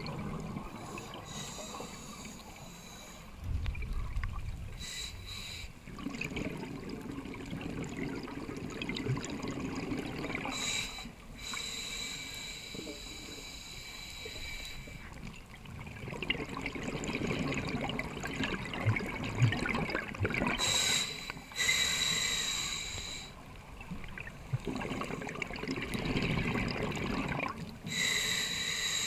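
Scuba diver breathing through a regulator underwater: hissing inhalations with a faint whistle, alternating with bubbling, gurgling exhalations, over several breath cycles.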